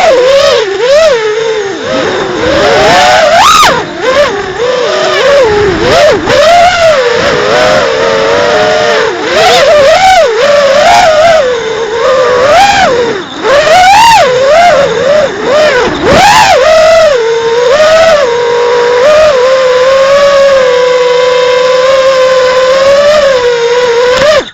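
FPV quadcopter's brushless motors and propellers whining, the pitch swinging up and down constantly with throttle changes. About eighteen seconds in it settles to a steadier, even whine.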